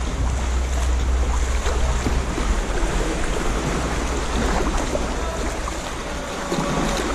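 Lake water splashing and lapping around a kayak, with a steady low rumble underneath.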